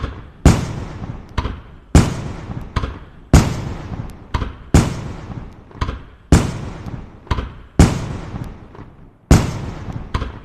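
Fireworks bursting: seven loud bangs about one and a half seconds apart, each trailing off in a fading rumble with smaller pops and crackles between them.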